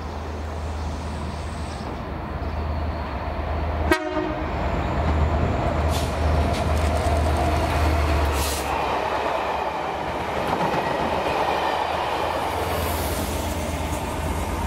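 Colas Rail Class 67 diesel locomotives, EMD V12 two-stroke engines, passing with a short train of coaches: a steady deep engine rumble with wheel and rail noise, loudest as the locomotive goes by. A single sharp knock about four seconds in.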